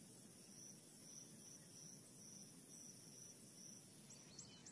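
Faint insect chorus: a cricket chirping about three times a second over a steady high insect buzz. Near the end, quick high chirping calls start up.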